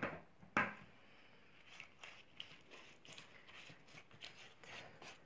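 A knock about half a second in, then a run of soft, faint brushing and dabbing strokes: a silicone pastry brush spreading sauce over crinkled yufka pastry sheets in a baking tray.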